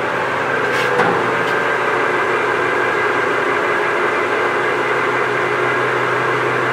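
Acra 2260 engine lathe running under power with its spindle turning at 230 RPM: a steady mechanical hum with a few steady tones and a small click about a second in.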